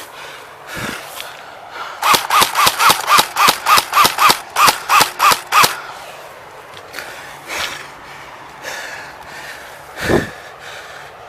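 Airsoft gun firing a quick string of about fifteen single shots, roughly four a second for nearly four seconds, each shot carrying a short rising-and-falling whine. A single thump follows near the end.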